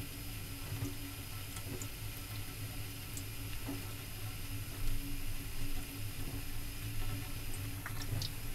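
Thin stream of water from a kitchen tap trickling into a stainless steel sink while a kitten drinks from it and paws at it, over a steady low hum. Near the end come a few light splashes and clicks as a paw bats the stream.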